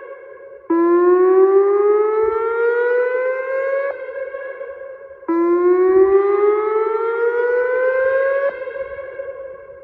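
Whelen WPS-2905 electronic siren sounding its whoop alert, the alarm code of a dam evacuation siren test. Two rising sweeps, each about three seconds long, each cut off abruptly and followed by a lingering tone that fades away.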